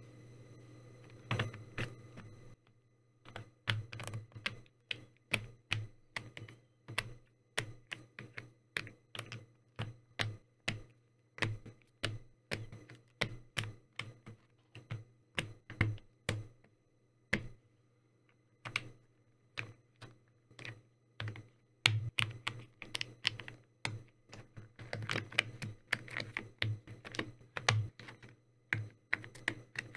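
Custom Ikki68 Aurora R2 mechanical keyboard with Akko Cream V3 switches and XDA-profile keycaps being typed on in a sound test. Single keystrokes come about two a second at first, then give way near two-thirds of the way through to quicker, denser typing.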